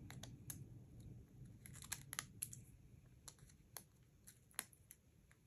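Faint, irregular clicks and crinkles of fingers picking the paper release backing off small foam adhesive tape squares on a cardstock cut-out.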